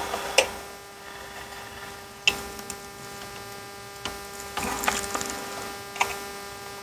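Small flathead screwdriver prying at the seam of a plastic ABS module housing: a few sharp clicks and a short scrape as the cover, stuck with RTV sealant, hangs up and resists coming apart.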